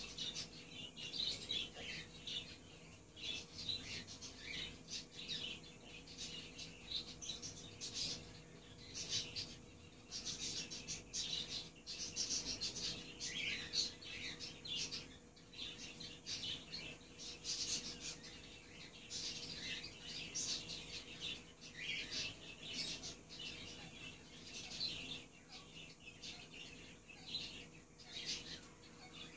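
Alexandrine parakeets chirping and chattering in a dense, unbroken run of short high calls, over a faint steady hum.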